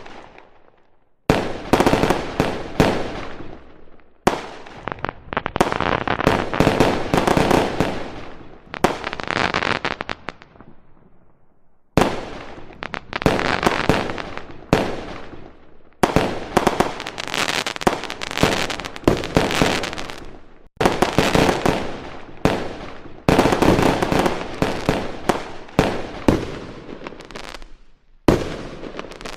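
Fireworks going off in dense volleys of rapid bangs and crackling, each volley lasting a few seconds and dying away before the next begins abruptly, about seven times over.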